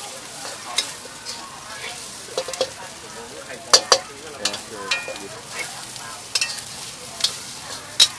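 Fried rice sizzling in a hot wok while it is stirred, with sharp metallic clanks of the spatula striking the wok at irregular intervals, several in quick succession a little under 4 seconds in.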